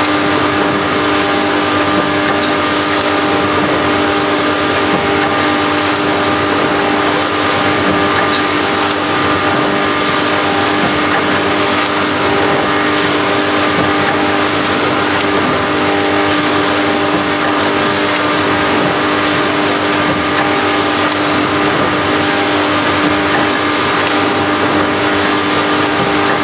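Back-sealing vertical packing machine running continuously: a steady mechanical hum with several held tones, and a faint regular pulse about once a second as it cycles through making bags.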